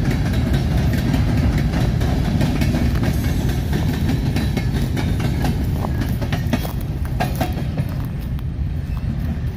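Freight train of covered hopper cars rolling past close by: a steady rumble of steel wheels on the rails with sharp clacks. The last car goes by near the end and the sound starts to ease off.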